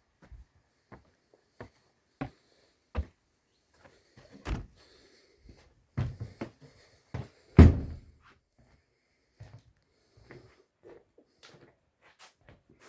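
Scattered knocks and thuds at irregular intervals, the loudest about seven and a half seconds in.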